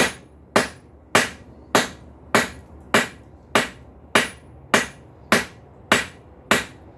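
Blacksmith's hand hammer striking a hot bar of hard high-carbon steel on an anvil, drawing it out square: a steady rhythm of sharp, ringing blows, a little under two a second.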